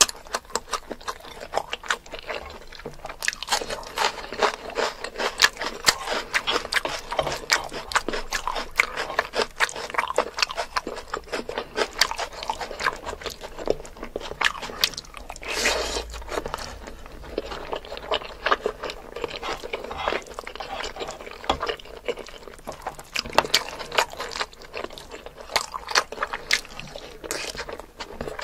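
Close-miked eating: chewing with wet mouth clicks and smacks, a dense irregular crackle of small sounds, as rice and spicy mutton curry are eaten by hand.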